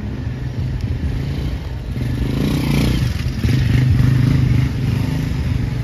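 A motor vehicle engine passing close by on a city street, with a steady low engine note that grows louder to a peak about two-thirds of the way through, then drops off a little.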